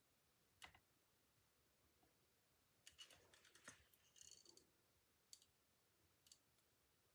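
Near silence, with a few faint clicks and a brief patch of light crinkling about three to four and a half seconds in: paper and vellum pieces being handled and pressed down on a card.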